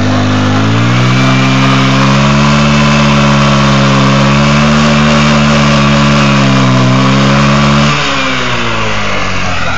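150cc scooter engine revved hard and held at high revs while the rear tyre spins on the asphalt in a burnout, over a steady hiss. The revs climb over the first second or so and drop back about eight seconds in.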